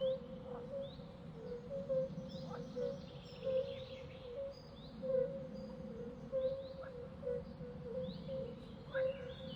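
Birds chirping in short notes about once a second, over a steady low background hum.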